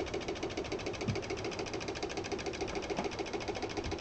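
Electromechanical relay clicking in a fast, even rhythm, switched on and off by a flip-flop circuit at a 50% duty cycle.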